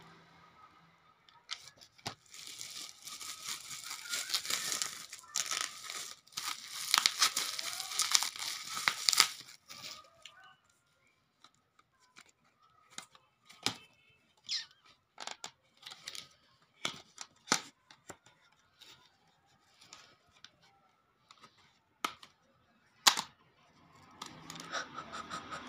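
Plastic bubble wrap crinkling and tearing as it is pulled apart, dense for the first several seconds. After that come scattered light taps and clicks of cardboard boxes being handled.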